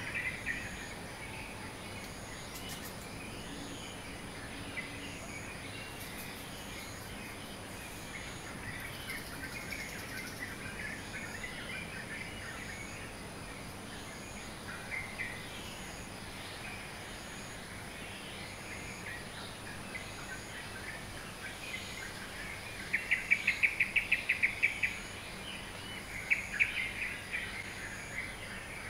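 Several birds chirping in a dawn chorus, with short chirps throughout; about two-thirds of the way in, one bird gives a loud, fast run of repeated notes, followed by a shorter run. A high insect hum with a faint regular pulse about once a second continues underneath.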